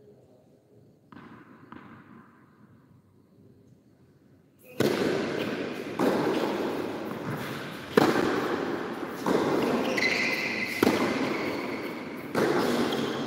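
Tennis rally on an indoor hard court: rackets striking the ball, sharp loud hits roughly every one and a half seconds, each ringing on in the hall's echo. It starts about five seconds in, after a couple of faint ball bounces before the serve.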